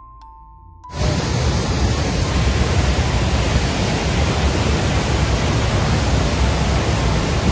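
A few chime-like music notes, then about a second in a loud, steady rushing noise starts suddenly, such as storm wind, rain or rushing water make.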